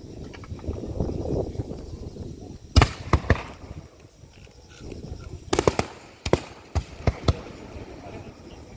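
Aerial firework shells bursting: a low rumble, then sharp bangs in quick clusters, about a dozen in all.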